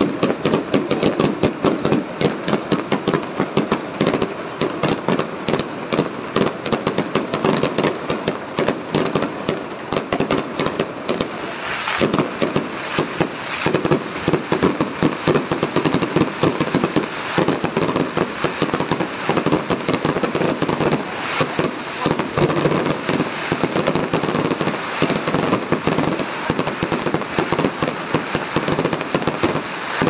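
Aerial fireworks display: many shells bursting in a dense, rapid barrage of bangs that keeps going without a pause.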